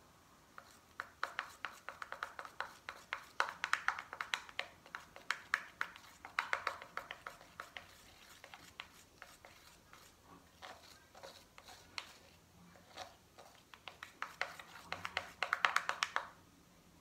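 A plastic stick stirring homemade slime in a small plastic pot: rapid sticky clicks and squelches in bursts, busiest from about a second in to about seven seconds, thinner in the middle, and busy again near the end.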